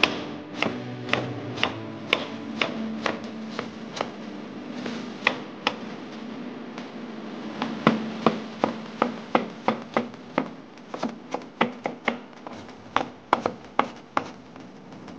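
Chef's knife chopping onion on a wooden cutting board: a steady series of sharp knocks as the blade strikes the board, about two a second, a little quicker in the second half.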